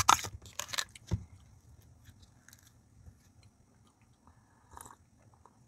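Close-up mouth sounds of eating: sips of udon broth from a small cup, with chewing. They are loudest in the first second and faint after that.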